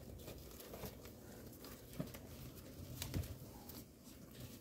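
Faint scuffling and a few soft taps as chihuahua puppies shift about on puppy pads in a plastic tub while being stroked, with the sharpest taps about two and three seconds in.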